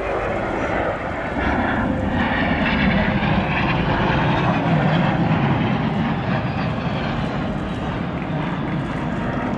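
Jet noise from Blue Impulse's Kawasaki T-4 jet trainers flying overhead, a steady rushing sound. It grows louder about a second in and eases a little after about six seconds.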